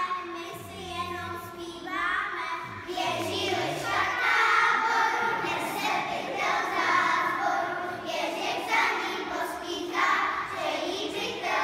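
Young children singing together, several high young voices carrying a tune.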